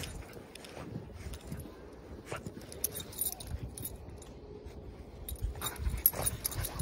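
Metal tags on a corgi's collar jingling in scattered bursts as it wades through deep snow, over irregular low thumps of its movement in the snow.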